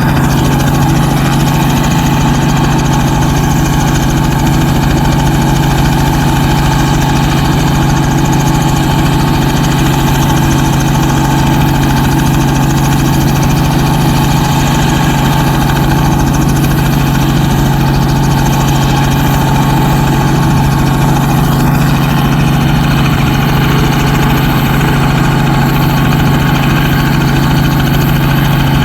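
An engine running steadily at a constant idle, with a strong, unchanging low hum and a fainter higher tone above it.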